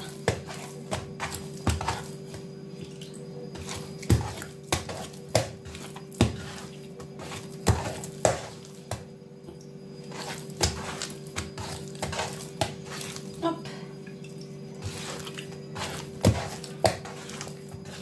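Hands slapping and folding a soft, sticky sfenj yeast dough in a woven wooden bowl: irregular wet slaps and knocks of dough on wood, about one or two a second.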